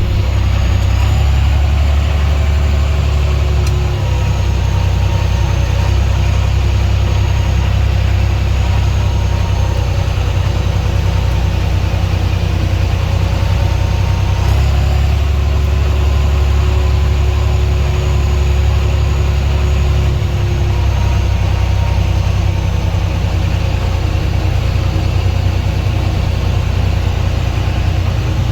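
John Deere 9500 combine harvester running steadily under load, its engine drone and machinery whine constant. The low drone eases about four seconds in, swells again about halfway through, and eases once more about two-thirds of the way in.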